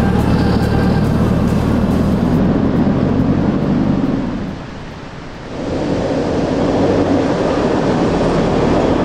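Four-wheel-drive vehicle driving along a dirt bush track: steady engine drone with tyre and road noise as it pulls away. It dips briefly about five seconds in, then builds again as a vehicle comes closer.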